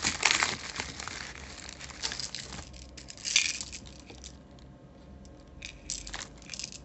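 Packaging being unboxed by hand: crinkling and rustling in irregular bursts, loudest at the start and again about three seconds in.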